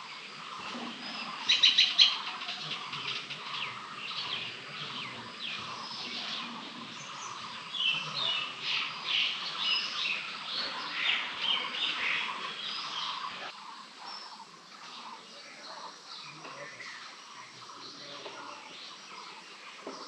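Several birds chirping and calling. About two seconds in there is a loud burst of rapid repeated notes, then a dense spell of chirping in the middle, thinning to sparser, quieter calls over the last several seconds.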